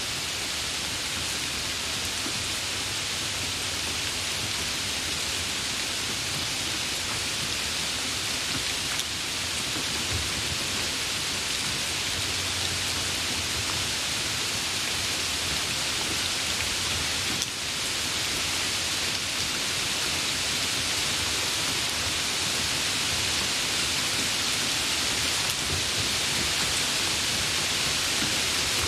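Steady, dense rain falling in a continuous hiss.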